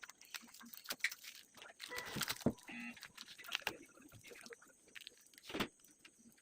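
Irregular crinkling and crackling of packaging being handled and opened, with scattered sharp clicks.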